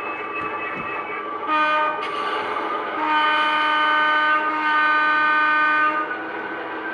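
A model locomotive's DCC sound decoder sounds its horn through the locomotive's small speaker: a short blast about a second and a half in, then a long blast of about three seconds, over the steady hum of the locomotive's engine sound.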